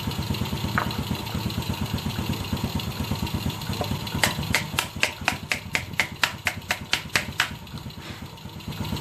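Motorcycle engine idling steadily. About four seconds in, a quick run of sharp clicks or taps comes in, about five a second, and stops after about three seconds.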